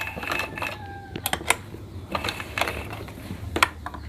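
A few light clicks and knocks, about five spread out, from handling a black-type sewing machine and the freshly sewn fabric once the stitching has stopped, over a faint low hum.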